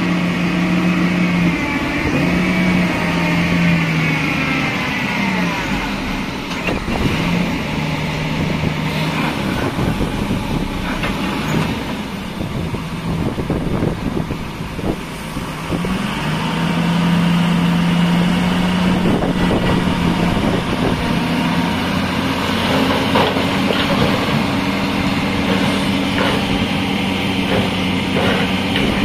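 Hyundai HX360L crawler excavator's diesel engine running under working load, its note dipping and recovering as the hydraulics swing the boom and work the bucket while loading soil into a dump truck, with a few knocks.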